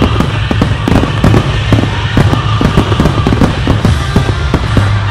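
Aerial firework shells bursting in a rapid barrage, a dense run of sharp bangs several a second.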